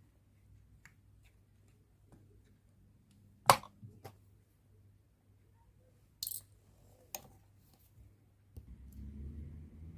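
A few sharp little clicks and taps of a precision screwdriver and tweezers working a tiny screw out of a watch case back; the loudest click comes about a third of the way in. Muffled handling noise starts near the end.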